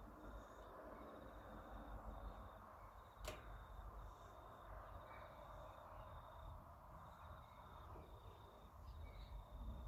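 Near silence: faint background rumble with a faint, high chirp repeating every half second or so, and one sharp click about three seconds in.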